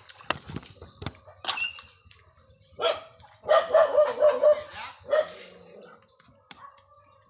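A dog barking in a quick run of about half a dozen barks around the middle. Before that come sharp clicks of mussel shells knocking together as they are washed by hand in basins of water.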